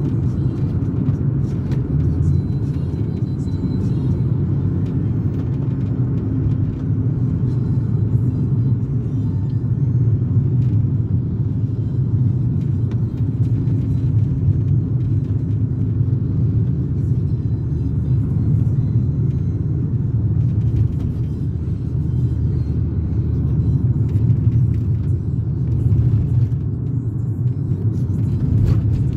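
Steady low rumble inside the cabin of a 1995 BMW E36 320i on the move: its M52B20 2.0-litre straight-six running, mixed with road and tyre noise.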